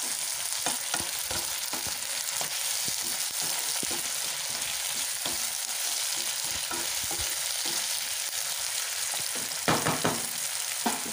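Freshly added chopped tomatoes and onions frying in hot oil, sizzling steadily, while a wooden spatula stirs and scrapes them around the pan in many short strokes.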